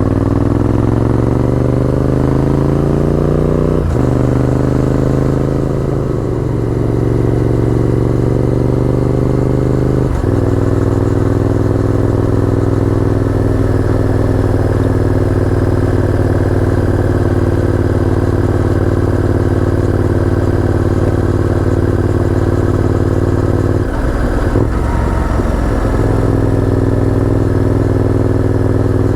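Honda VTR1000F's 90-degree V-twin engine pulling through the gears under acceleration. Its pitch rises, then drops at upshifts about four and ten seconds in, before holding steady at cruising speed, with a brief break in the engine note near the end.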